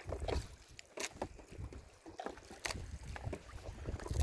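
Water slapping and lapping against a small boat's hull, with wind buffeting the microphone and scattered light knocks.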